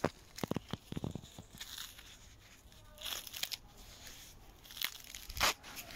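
Green husk leaves being torn and peeled by hand from a freshly picked ear of sweetcorn: crisp tearing and rustling, with several sharp snaps early on and one loud snap near the end.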